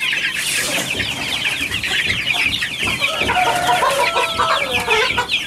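A crowd of young aseel chicks peeping and chirping loudly all at once, with a few lower, longer calls from about three seconds in. It is a hungry racket, and feeding them is what quietens it.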